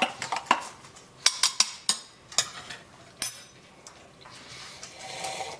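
Spoon clinking against a coffee cup while stirring a cappuccino: a run of sharp, irregular clinks over the first three seconds, then a soft hiss near the end.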